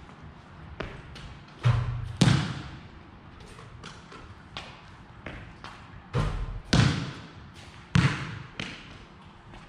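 A basketball bouncing on a concrete court, with about five heavy thuds and some lighter knocks. Each thud echoes off the surrounding walls and roof.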